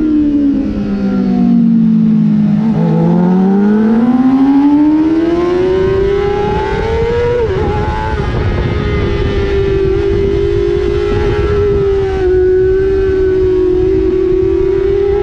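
Sport bike's inline-four engine heard onboard at racing speed. The revs fall steeply over the first two and a half seconds for a corner, then climb back up with a quick dip from a gear shift about seven and a half seconds in, and hold high and nearly steady for the rest. Wind noise runs underneath.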